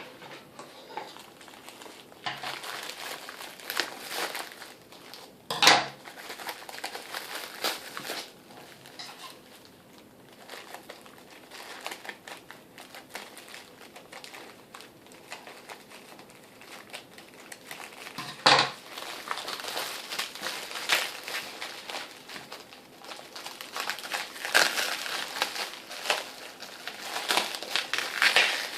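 Plastic packaging crinkling and rustling on and off as a boxed power supply is unwrapped, with two sharp clacks, one about six seconds in and one about eighteen seconds in.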